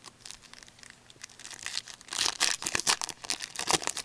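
A hockey card pack's wrapper being torn open and crinkled by hand. The crackling starts light and grows louder and denser through the second half.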